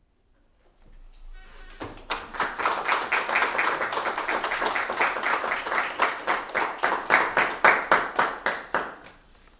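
Applause: hands clapping at a steady pace, about four claps a second, starting about two seconds in and stopping near the end.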